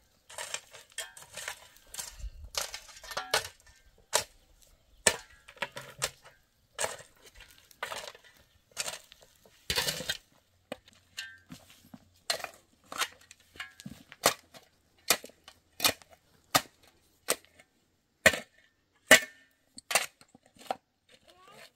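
A long-handled pick striking dry, stony soil in a steady digging rhythm, about one blow every three-quarters of a second, each a sharp crunch of metal into earth and stones.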